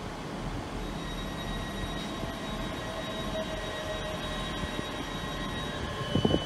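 ScotRail electric multiple unit running past along the platform: a steady rumbling run with a high steady whine, and a brief clatter about six seconds in.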